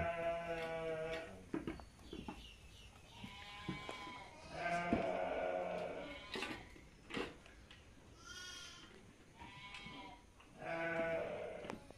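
Sheep bleating, several separate calls spread through the stretch, some long and some short.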